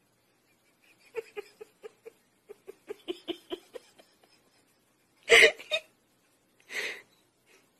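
A person laughing off-camera in quick short bursts, about four a second, breaking into two louder outbursts in the second half.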